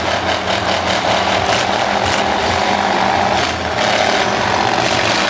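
Several demolition derby cars' engines running and revving together in a loud, continuous din, with a few sharp knocks in the middle.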